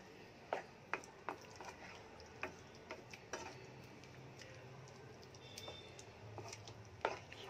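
Wooden spatula stirring taro pieces in a thin tamarind gravy in a nonstick pan, with light taps of the spatula against the pan at irregular moments, several in the first three and a half seconds and one more near the end.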